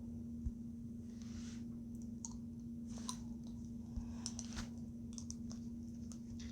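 Scattered, irregular computer mouse clicks, about a dozen, over a steady low electrical hum.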